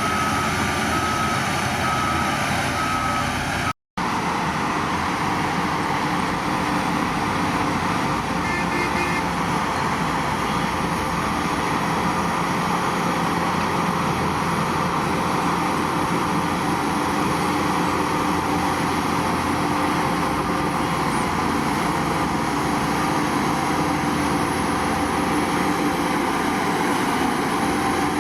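Heavy earthmoving machinery running steadily, with a reversing alarm beeping in the first few seconds. The sound drops out for an instant about four seconds in, then the steady machine noise continues.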